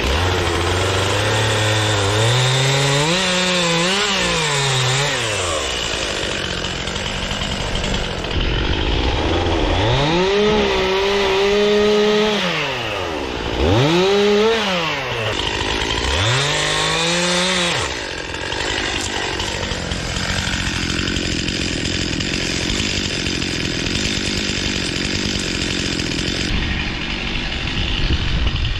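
Gas chainsaw revving up and dropping back several times in bursts of a few seconds each. Later it runs at a steadier, slightly lower level.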